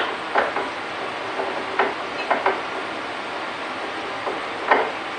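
Lathe gear train turned by hand, the freshly cut bull gear's teeth clicking irregularly as they mesh with the mating gear, a few separate clicks over a steady hiss. The new teeth make a little noise as they mesh.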